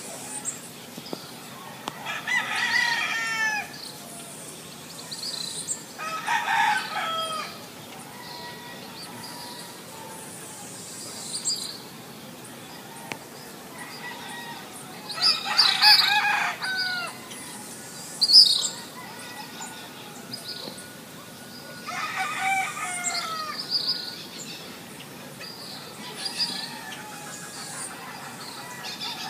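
A rooster crowing four times, the loudest crow about halfway through, with smaller birds chirping between the crows.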